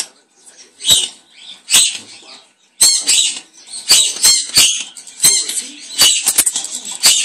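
Sharp, irregular clicking and rattling as dwarf hamsters jostle at a water bottle's metal sipper tube. The clicks come about once a second at first, then faster and in clusters after about three seconds.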